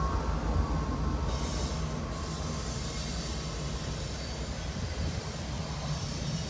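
Intermodal freight train of double-stack container well cars rolling past, with a steady rumble and rattle of wheels on rail. A thin wheel squeal is heard through the first couple of seconds. Heard from inside a car.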